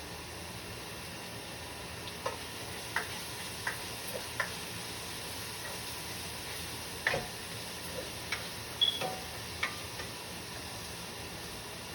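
Steady sizzle of food frying in oil in a pan, with a dozen or so light clicks and taps of a utensil against cookware scattered through it.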